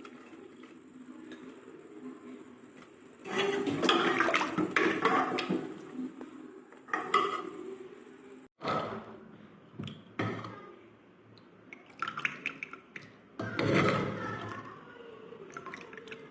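Mutton soup being poured and splashing for a few seconds, then an abrupt break and several clinks and scrapes of a utensil against a metal pot.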